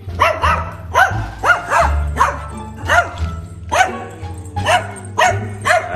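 A dog barking over and over, about two barks a second, over background music with a steady low bass.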